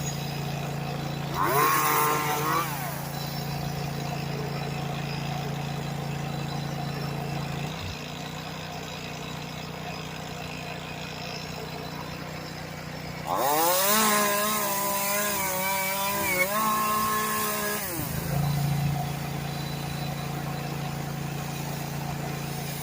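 Small 10-inch Echo chainsaw running. It revs up briefly about two seconds in, then is held at high revs for about four seconds past the halfway mark before dropping back, over a steady engine drone.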